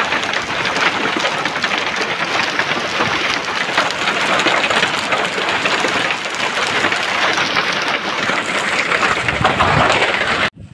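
Hailstorm: hailstones and heavy rain pelting the ground, a dense, loud clatter of countless small impacts that cuts off abruptly near the end.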